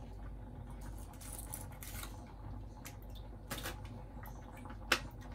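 Gelatin sheets being pressed down into a plate of water to soak: soft wet handling sounds and light splashes, with a sharp click against the ceramic plate near the end.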